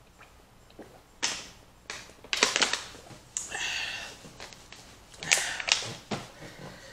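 A woman coughing and clearing her throat in about four separate bursts after choking on spicy food that she inhaled while eating.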